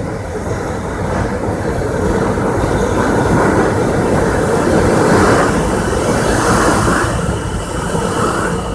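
New York City Subway R160A-2 train pulling into an underground station, a loud rumble of wheels and motors that builds to its loudest about five seconds in as the cars pass beneath.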